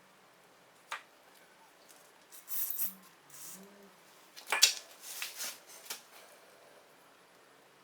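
Hand work on small metal parts: a sharp click about a second in, short hissy scraping bursts, and a loud clack with some rattling near the middle.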